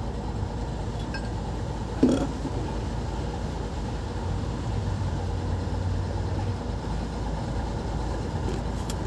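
A single sharp metallic clink about two seconds in, as metal knocks against a truck's undercarriage during repair work, over a steady low rumble of machinery.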